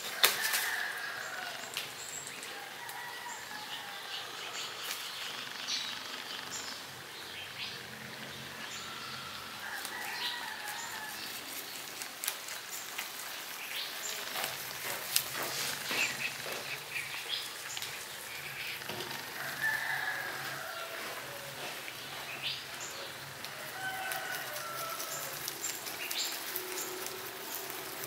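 A rabbit chewing fresh cannabis leaves: a run of short crisp clicks and leaf rustling. Brief bird calls come in every few seconds.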